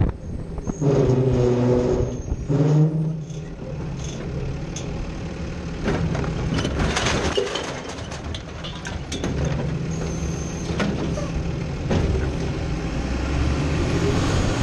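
Heil Rapid Rail side-loader garbage truck heard from inside its hopper: the engine revs up about a second in to drive the hydraulic arm, then a burst of clattering as recyclables drop into the hopper around the middle, and the engine runs steadily again near the end.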